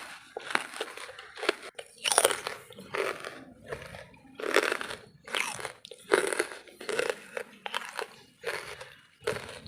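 Close-miked crunching and chewing of pieces of dry wood charcoal: a regular run of gritty crunches, a little under one a second, with sharp cracks as the pieces break between the teeth.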